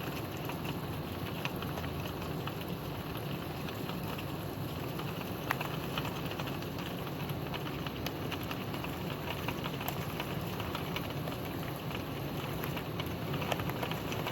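Steady rain falling, an even hiss with many separate drops ticking sharply on a surface, over a low steady rumble.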